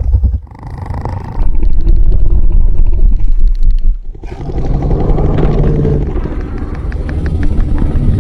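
Monster creature sound effects for the Mantisaur: deep, rough roars and growls. The first has a fast rattle running through it, and a second long roar begins about four seconds in.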